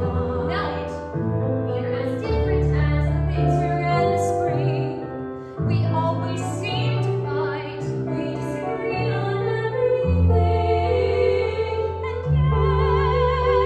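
A woman singing a musical-theatre song with vibrato on held notes, over instrumental accompaniment.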